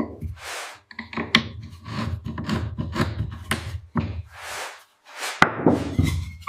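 Wood being worked by hand: a run of irregular scraping and rubbing strokes with sharp knocks, broken by a few brief pauses.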